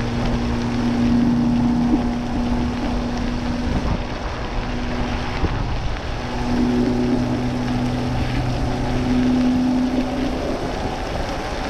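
Electric motor of a Spark Cycle Works Bandit e-moped whining steadily under power while riding, over a constant rush of wind and tyre noise on a wet road. The whine drops out for a moment about halfway through and comes back.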